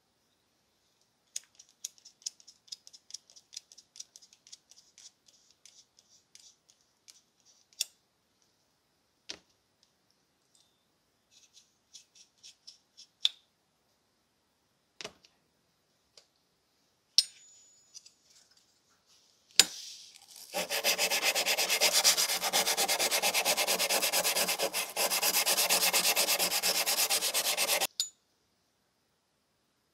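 Light clicks and rubs as the aluminum grapefruit corer and its wooden handles are handled and taken apart, with a couple of sharp clacks. About two thirds of the way in, 500-grit sandpaper is rubbed rapidly back and forth on the corer's aluminum for about seven seconds, then stops suddenly. The sanding takes off the oxidized surface.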